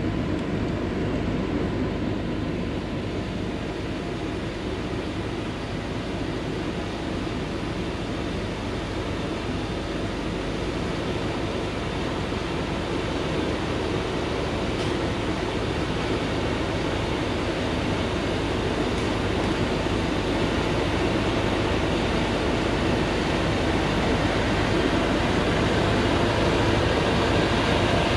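Diesel engine of a Thaco Forland FC950 4WD truck loaded with acacia wood, running steadily under load on a rough dirt track and growing gradually louder as it approaches.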